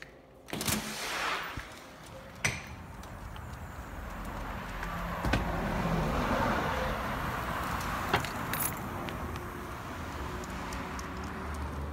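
Brief metal jingling and a door click, then a passing car's road noise that swells to a peak about six seconds in and slowly fades, with a few light clicks.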